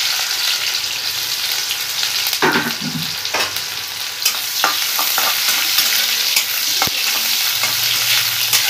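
Sliced onions sizzling in hot oil in a steel kadhai, a steady loud hiss. A few short clicks and scrapes come from a metal spatula stirring them.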